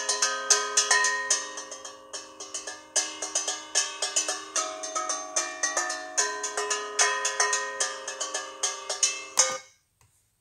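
Recorded solo struck, pitched instrument playing a quick melody of rapid notes that ring on under one another, stopping abruptly about nine and a half seconds in.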